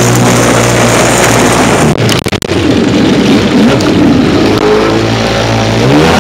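Yamaha SuperJet stand-up jet ski's two-stroke engine running at speed, with water spray hissing off the hull. About two seconds in there is a brief cluster of knocks and dropouts. After that the engine's pitch swings up and down, then climbs near the end.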